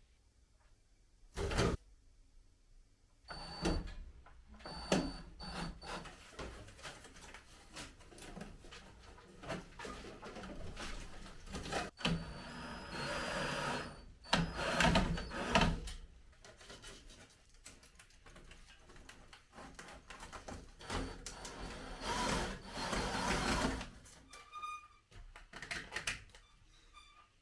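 Irregular knocks, clatters and scraping of hands-on work, with longer noisy stretches lasting a few seconds around the middle and near the end.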